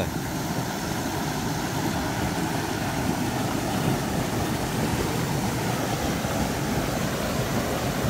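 A small mountain-stream cascade: whitewater pouring over rocks into a deep pool, a steady rushing.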